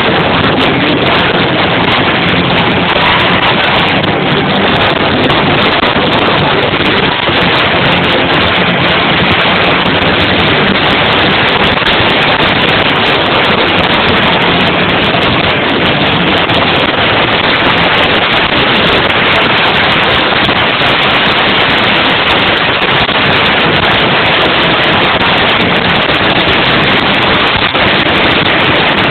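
Rock band with electric guitar playing live, recorded so loud that the microphone overloads. The music comes through as a steady wall of distortion with little of the notes left.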